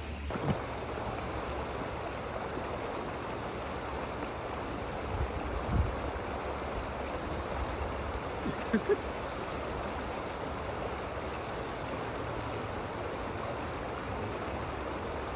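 Water running steadily over a small waterfall, an even rushing splash, with a few brief low bumps partway through.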